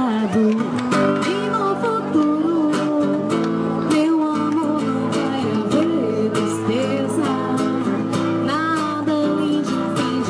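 A woman singing into a microphone while strumming an acoustic guitar, both amplified through a small speaker.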